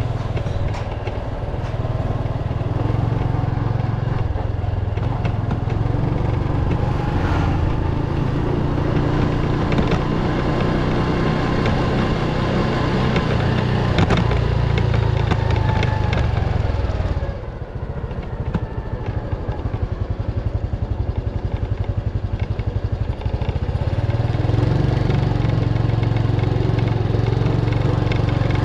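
Small motorcycle engine running while riding, with wind rumble on the microphone. About 17 seconds in the engine eases off and slows, then picks up again about 24 seconds in.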